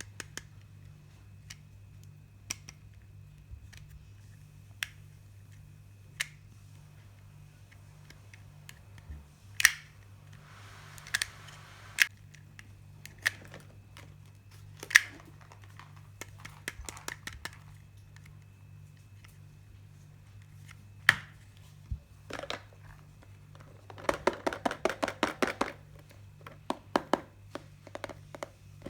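Hands handling plastic toy makeup pieces and their packaging: scattered sharp clicks and taps, a brief crinkle of wrapping, and a fast run of clicks about seven a second near the end, over a low steady hum.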